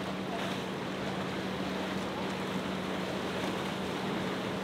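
Motorboat running through the water: a steady engine hum under the rush of its bow spray and wake, with some wind on the microphone.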